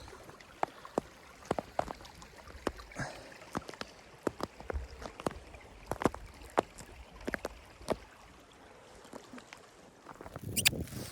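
Irregular sharp clicks and knocks, a few a second, easing off for a couple of seconds before a rush of steady noise rises near the end.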